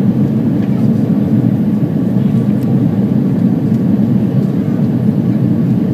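Airbus A340-300 cabin noise on approach, heard at a window seat: the steady, even rumble of its CFM56 engines and the airflow over the fuselage.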